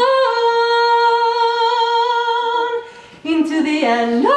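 A trained soprano voice singing held vowel notes: she slides up into a long sustained note that fades after about three seconds, then sings a short lower phrase and swoops up to a higher held note near the end.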